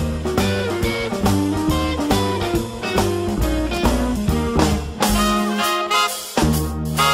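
Upbeat swing-style jazz music with brass and a drum kit keeping a steady beat.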